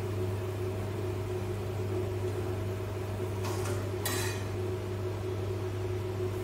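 Metal slotted spoon scraping and clinking against a kadai of frying oil while puris are fried: two brief strokes, about three and a half and four seconds in, over a steady low machine hum.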